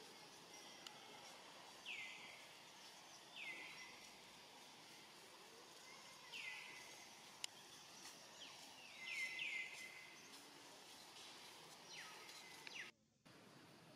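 Quiet outdoor ambience with short, high chirping calls that slide downward, repeating every second or two, with several close together about nine seconds in. A single sharp click comes about halfway through, and the sound cuts out for a moment near the end.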